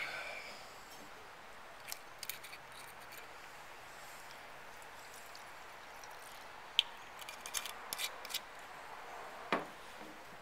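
Red wine poured from a glass bottle into a stemless wine glass: scattered sharp clicks and ticks of glass on glass during the pour, then a dull knock as the bottle is set down on the table near the end, over a steady outdoor hiss.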